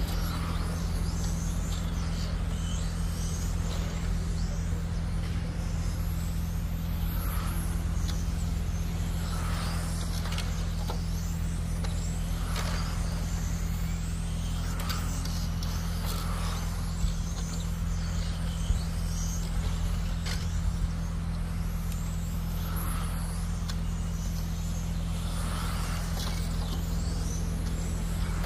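Radio-controlled race cars lapping a track: high motor whines rise and fall as cars pass every couple of seconds, over a steady low hum.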